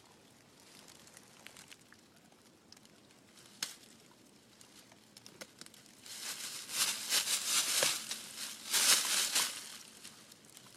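An animal chewing and tearing at a sapling: bursts of crunching, crackling and rustling start about six seconds in and fade near the end, after a quiet stretch with a single click.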